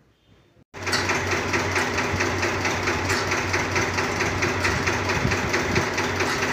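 Escort 335 tractor's diesel engine idling. It cuts in suddenly under a second in and runs on steadily with a rapid, even knocking beat.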